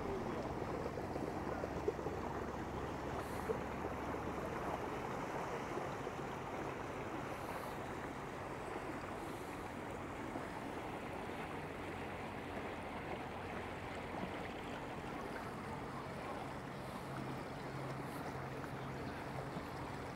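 Riverside ambience: a steady wash of water and wind noise under the low hum of a motor boat's engine, which eases off about four seconds in and grows stronger again in the second half.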